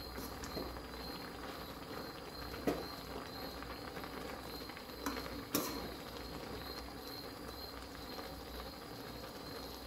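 Mustard greens simmering in an aluminium kadai with a steady low hiss, stirred by a steel ladle that clinks against the pan a few times.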